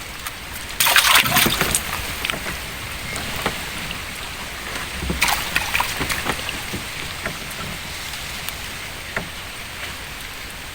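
Water sloshing and splashing, with two louder splashy bursts, one about a second in and one about five seconds in.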